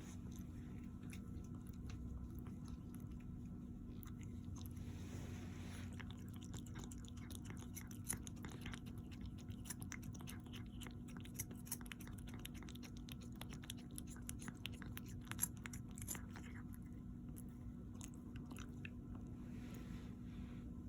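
Crunchy food being chewed close to the microphone: a run of small crisp crunches and clicks, thickest through the middle and thinning near the end, over a steady low hum.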